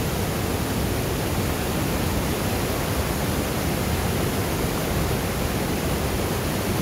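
Whitewater of a monsoon-swollen mountain river rushing over boulder cascades: a loud, steady, unbroken noise.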